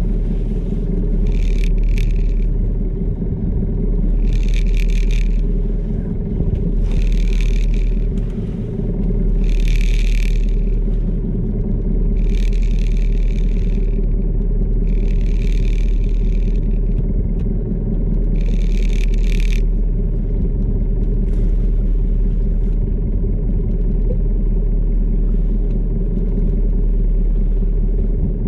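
A fishing boat's engine runs with a steady low drone. Short hissing bursts come about every two to three seconds, eight in all, then stop about twenty seconds in.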